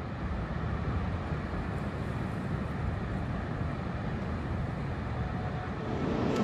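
Steady low rush of wind, fading in at the start and getting louder about six seconds in.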